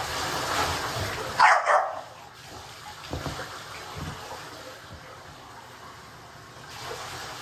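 A dog barks twice in quick succession about a second and a half in, over the hiss of running bath water. Two dull knocks follow a little later.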